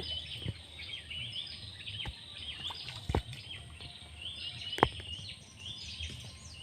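Swamp ambience of many high, short chirping calls repeating over a low outdoor murmur, with two sharp knocks about three and five seconds in, the second the loudest.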